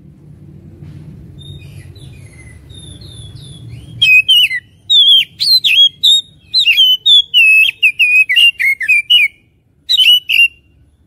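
Oriental magpie-robin (kacer) singing. Faint short chirps over a low background rumble for the first four seconds give way at about four seconds to a loud, rapid run of whistled notes and sharp slurred chirps, which stops about half a second before the end. This is a full, vigorous song of the kind played as 'pancingan' bait to provoke a kept magpie-robin into singing.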